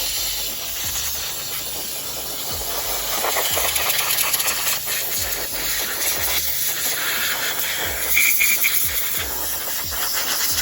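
Compressed-air blow gun hissing as it blows dirt off an RC truck, the air flow easing up and down over several seconds.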